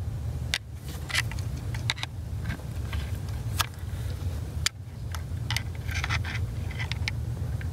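Hand tools clicking and scraping against metal while working loose a diesel injector on the engine's cylinder head. The clicks are short and irregular, over a steady low hum.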